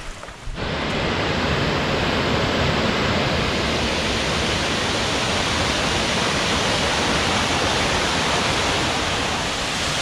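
A waterfall rushing steadily down a rocky creek bed, an even roar of falling water that comes in suddenly about half a second in.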